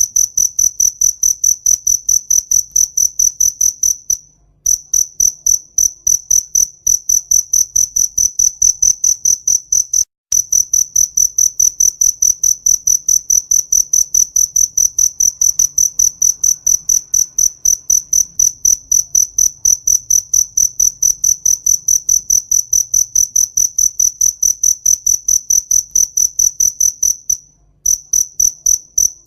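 A cricket chirping in a steady, even rhythm of about three to four high-pitched chirps a second, breaking off briefly three times.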